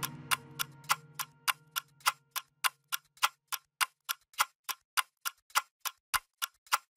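Sharp, evenly spaced clock-like ticks, about three a second, in the soundtrack's break between music. A low held note from the music fades out under them over the first few seconds.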